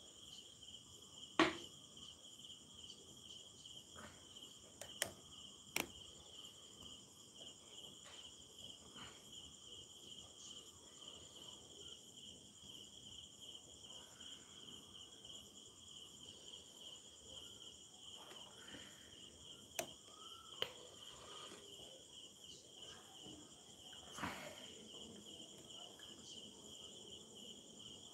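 Crickets chirping steadily and faintly, with a few sharp clicks, the loudest about a second and a half in.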